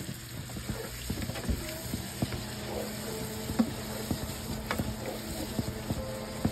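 Tofu cubes and green bell pepper pieces sizzling in a pan as a spatula stirs them, with irregular scrapes and taps of the spatula against the pan. A steady low hum runs underneath.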